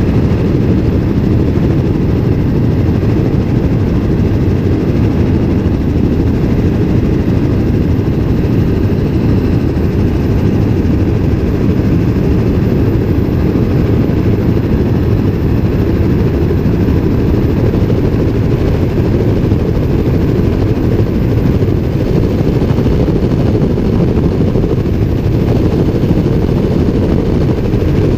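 Helicopter in flight, its rotor and engine running with a loud, steady noise that is heaviest in the low range.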